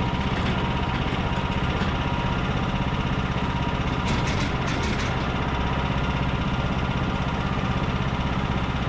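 Engine of a homemade band sawmill running steadily at an even pitch, with a short run of high clicks about four seconds in.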